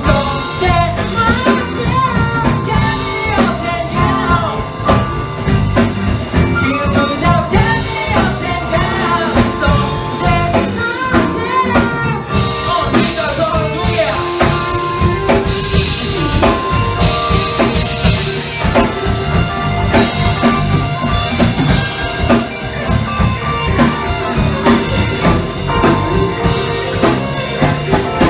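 Live rock band: a male singer over electric piano, electric guitar, electric bass and drum kit.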